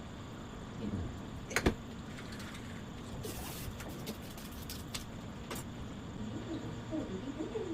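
A few sharp clicks and knocks, the loudest about a second and a half in, with a brief hiss in the middle, over a steady low hum; near the end a bird starts a low, wavering cooing call.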